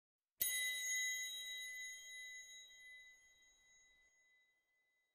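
A single bell-like chime struck once about half a second in, ringing with a clear high tone that fades away over about four seconds.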